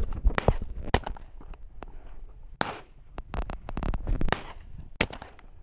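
Footsteps through dry grass with irregular sharp clicks and knocks from a carried shotgun and the body-worn camera, a quick cluster of them a little past the middle.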